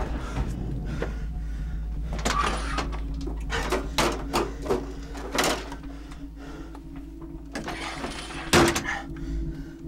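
A bathroom medicine cabinet being opened and rummaged through: a run of clicks and knocks from the cabinet door and the bottles inside, with one louder knock near the end.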